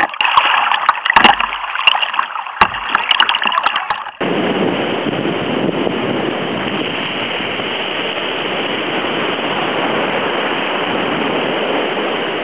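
Choppy sea slapping and splashing against a kayak's hull, then, about four seconds in, a sudden change to a steady rush of breaking surf and foaming water.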